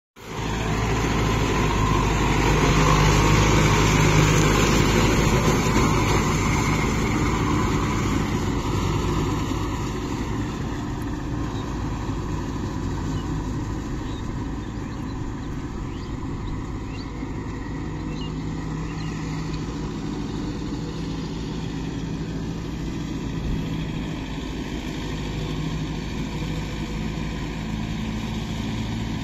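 Kubota tractor's diesel engine running steadily while it pulls a rotavator through a wet paddy field. It is loudest in the first few seconds, close by, then quieter and steady as the tractor moves off.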